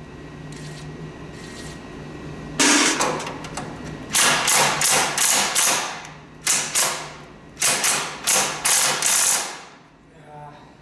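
Sharp metallic strikes and clicks from a hand tool working at a stuck cylinder head bolt, in several quick bursts starting a couple of seconds in and stopping near the end.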